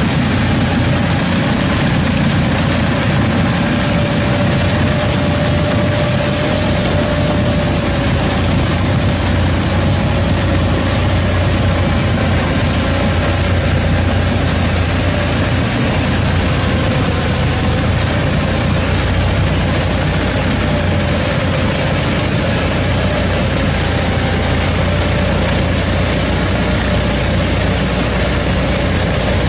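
Tractor engine running steadily under load as a tractor-mounted rotary ditcher's spinning disc cuts through the ditch and throws out soil: a constant heavy drone with a faint wavering tone and no distinct knocks.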